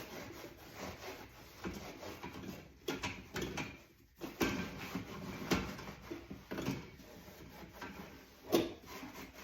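A scrubber sponge scrubbing the inside walls of a dishwasher: irregular rubbing and scraping strokes, with a few sharp knocks against the tub.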